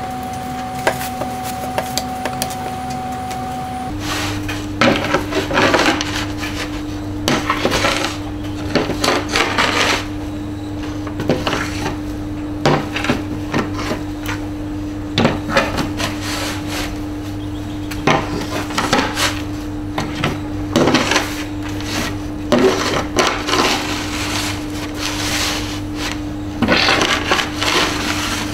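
Electric steam iron sliding and scraping in irregular back-and-forth strokes over a wooden board strewn with chalk pastel pieces, over a steady low hum.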